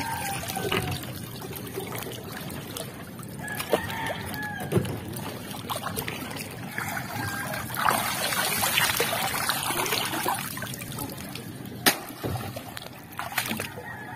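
Shallow seawater sloshing and splashing as a person wades and works their hands and a shell-encrusted net through it. The splashing grows busier about eight seconds in, and there are a few sharp knocks, the loudest about twelve seconds in.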